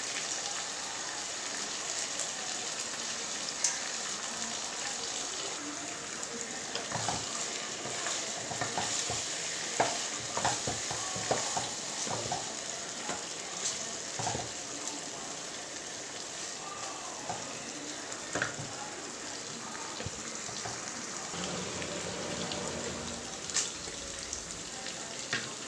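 Marinated mutton pieces shallow-frying in oil in a granite-coated pot: a steady sizzle, with a wooden spatula knocking and scraping against the pot as the pieces are stirred and turned, most often in the middle stretch.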